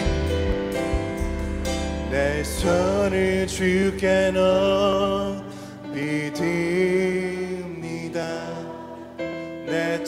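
Live church praise-band music with a singing voice over the accompaniment. The heavy bass and drums drop away about halfway through, leaving a softer, quieter passage of voice and keyboard-like sustained tones.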